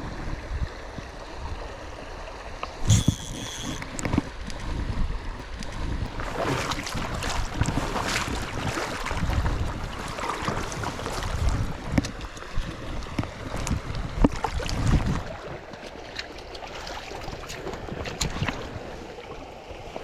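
Small stream running, with wind buffeting the microphone; irregular louder bursts of noisy water or handling sound come from about six seconds in until about fifteen seconds in.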